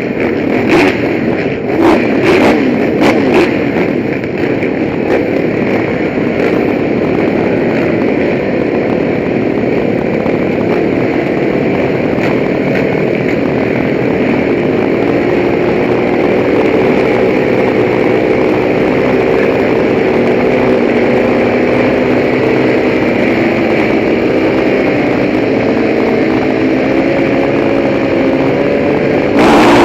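KTM motocross bike engine running hard on a lap, heard from a helmet camera, its pitch rising and falling as the rider works the throttle. There are several sharp knocks and clatters in the first few seconds.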